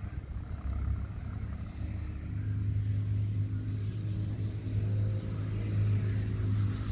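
A motor vehicle's engine running with a steady low hum, getting louder about two seconds in and holding there.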